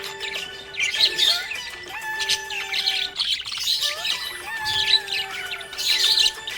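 Small pet parrots chirping and squawking in short bursts about every second or so, over background music with long held tones.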